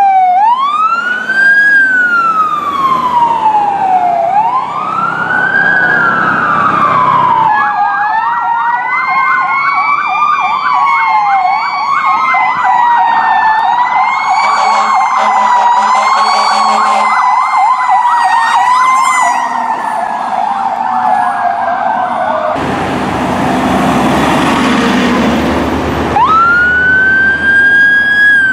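Emergency vehicle sirens. First a single wail siren rises and falls slowly; then, after a cut, several sirens sound at once, with fast yelps over a slower wail and a low steady tone beneath them for a few seconds. Near the end there are a few seconds of loud rushing noise, then an ambulance's wail siren starts low and winds up to its peak.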